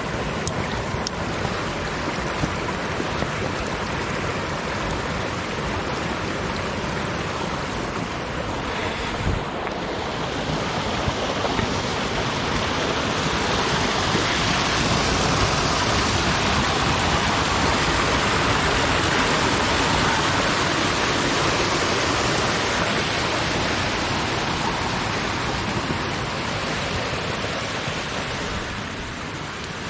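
Steady rush of running water. It grows louder a few seconds before the middle and eases off near the end.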